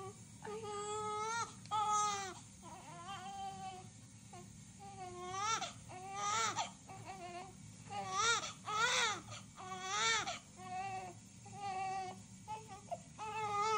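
Newborn baby crying while being handled, in a string of about a dozen short wails that each rise and fall in pitch.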